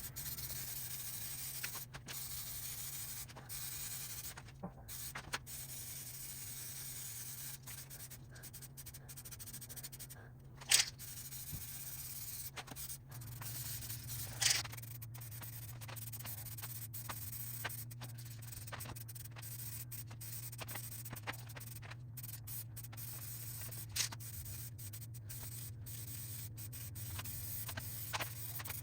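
Car body paint being sprayed: a steady hiss over a low hum, cut off abruptly many times, with a few sharp clicks.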